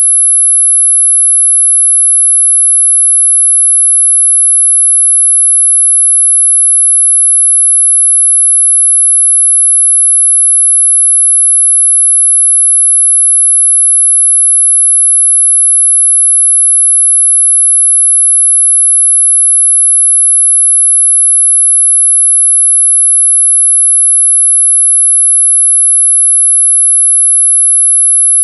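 An 11 kHz sine tone, high-pitched and unbroken, held at one steady level: a sound-masking tone for high-pitched tinnitus ringing.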